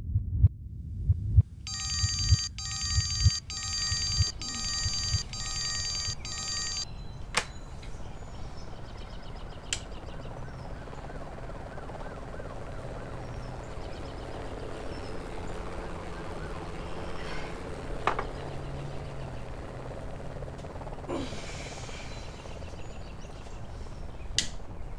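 Low, heartbeat-like thumps in the first few seconds. From about a second and a half in they are overlaid by a high electronic ringing that pulses about once a second for some five seconds. After that comes a steady low hum with a faint hiss and a few soft clicks.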